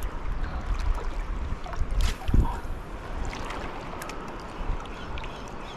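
Wind rumbling on the microphone over water washing at the shore, with a few scattered small clicks and a short low sound about two and a half seconds in.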